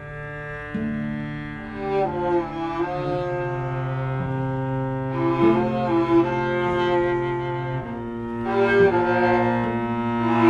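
Slow cello music: long bowed notes layered over a held low line, the upper part moving from note to note. It gets louder about a second in.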